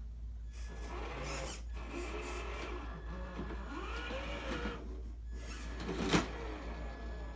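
Electric motor and geared drivetrain of an RC rock crawler whining, the pitch rising and falling in short swells as the throttle is worked, with a sharp click about six seconds in, over a steady low hum.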